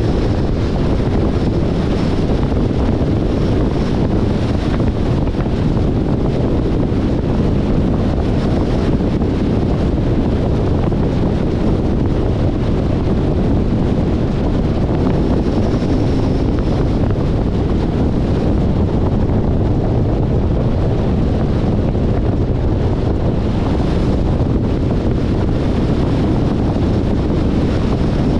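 Steady wind rush on the microphone, mixed with the driving noise of a 2021 Jeep Compass moving along the road, even and unbroken.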